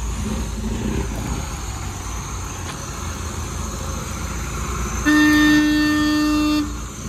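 Low rumble of vehicle engines, then about five seconds in a car horn sounds one steady honk lasting about a second and a half.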